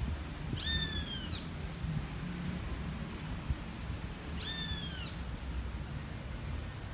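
A bird calls twice, about four seconds apart, each call a drawn-out note that rises and then falls, with a few short high chirps between them over a steady low outdoor rumble.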